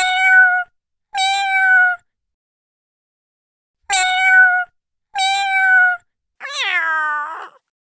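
Domestic cat meowing five times: two short, high, level-pitched meows, a pause of about two seconds, two more alike, then a longer final meow that starts high and slides down in pitch.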